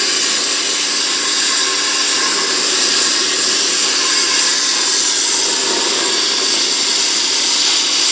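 Hypertherm Powermax1000 plasma cutter torch cutting through a lathe bed: a loud, steady hiss of the arc and air jet that does not break.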